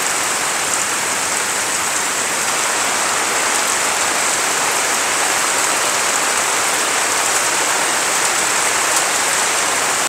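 Steady heavy rain falling, an even unbroken hiss at a constant level.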